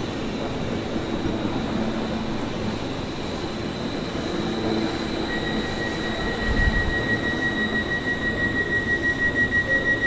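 A train moving through a station, rumbling steadily. About halfway in a steady high-pitched wheel squeal sets in, and near the end the sound pulses regularly.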